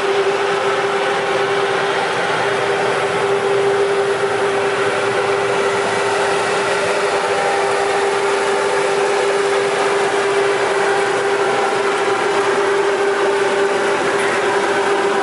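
Butfering long-belt sander running steadily: a constant hum over an even rushing noise.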